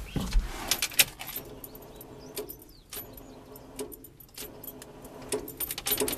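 1968 Ford F-250's starter circuit buzzing and clicking irregularly as the key is held to start, without the engine cranking. It is the sound the owner calls a dead battery noise, though the battery reads good; he suspects the starter solenoid.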